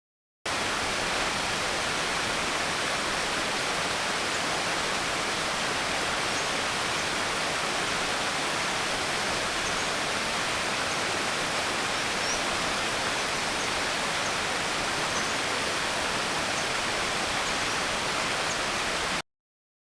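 Rushing water: a steady, even rush with no rise or fall. It cuts in abruptly about half a second in and cuts off abruptly near the end.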